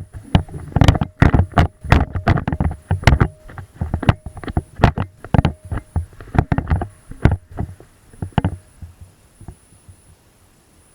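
An irregular series of sharp knocks and thumps, about two or three a second, that stops about eight and a half seconds in.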